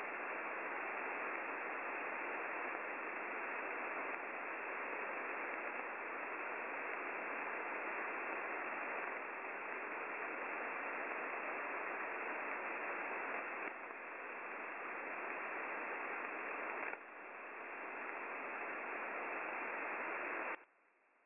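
Radio static from an online shortwave receiver in AM mode: a steady hiss with no signal on it, which cuts off suddenly near the end.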